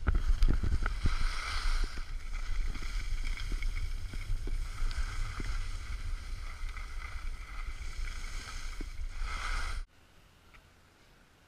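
Wind buffeting the camera microphone while skiing downhill, with the hiss of skis sliding over snow and scattered ticks. It cuts off suddenly near the end, leaving only a faint low background.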